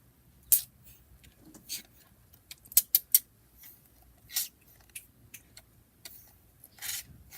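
Irregular sharp plastic clicks and brief squirts from a bottle of glow-in-the-dark paint being handled and squeezed out.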